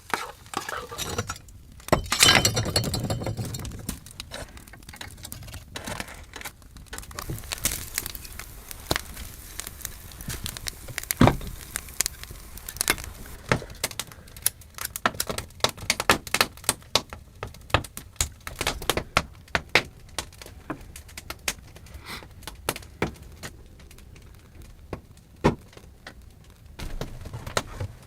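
Wood fire crackling, with irregular sharp snaps and pops. There is a louder rush of noise about two seconds in.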